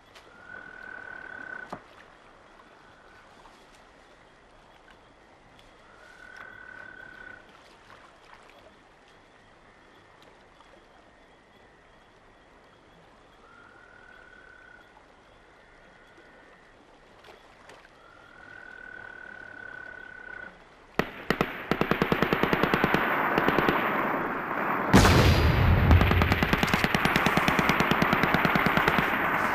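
A short, high call of steady pitch, repeated four times over a quiet night background. Then sudden sustained rapid machine-gun fire, with a heavy boom a few seconds later under the continuing fire.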